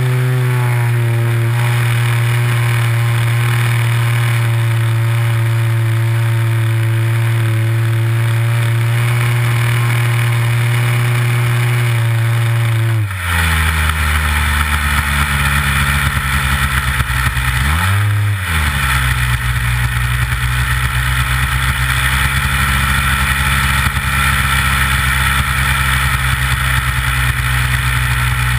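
A Big Stik 60 model plane's nitro glow engine heard from on board, running at a steady high throttle. About 13 seconds in it is suddenly throttled back to a lower, rougher note, with a brief rev up and back down about 18 seconds in. It then runs steadily at low throttle as the plane comes in to land.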